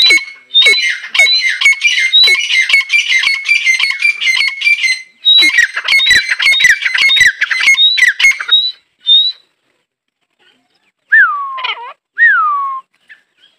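Female grey francolin (teetar) calling: a rapid run of harsh, repeated notes lasting about five seconds, a brief break, then another run of about three seconds. After a short pause come a few separate notes that each slide downward in pitch.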